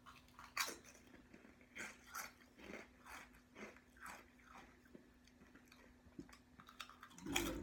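Someone chewing kettle-cooked potato chips: faint, crisp crunches repeating about every half second. A brief louder low sound comes near the end.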